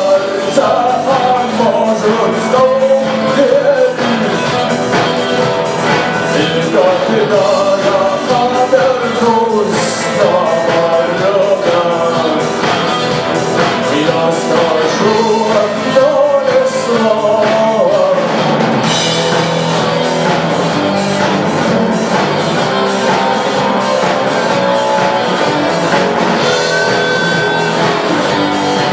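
Russian rock song played by a band with guitar and drums, an instrumental stretch with no lyrics. A lead melody wavers up and down over the first two-thirds, then the backing carries on with steadier held notes.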